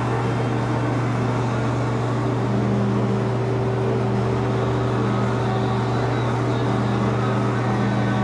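Steady low hum of a paint spray booth's ventilation fans running, with an even rushing of air over it.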